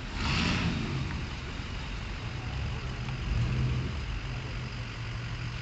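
Low, steady engine rumble of a slow procession of cars, with a Ford Super Duty dually pickup nearest, rolling past at walking pace. A brief hiss comes near the start.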